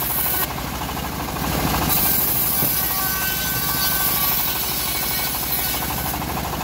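Homemade band sawmill running steadily, its blade sawing lengthwise through an old teak log: a loud, even mechanical drone with a fast pulsing beat.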